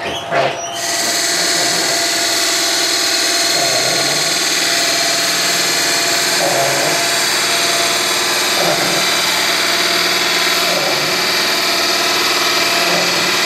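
Wood lathe starting up and reaching full speed within the first second, then running steadily while a gouge cuts a spinning wooden blank, throwing off shavings. The noise is loud and steady and wavers slightly about every two seconds.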